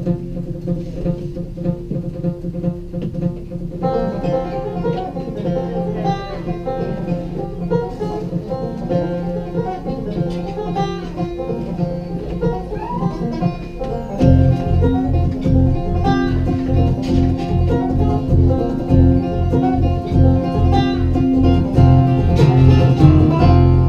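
Acoustic string band playing the instrumental introduction to a folk song, led by plucked strings. More instruments join about four seconds in, and a steady low beat comes in about fourteen seconds in.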